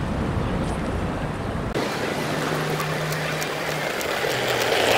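Outdoor city square ambience with a deep traffic rumble. Nearly two seconds in the sound changes abruptly: the rumble drops away, leaving lighter street noise with faint repeated clicks like footsteps, a low steady hum and a brief louder swell near the end.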